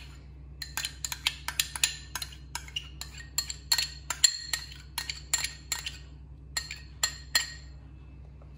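Metal spoon clinking and scraping against a glass bowl while scooping out thick yogurt: a quick, irregular run of short ringing clinks that stops about a second before the end.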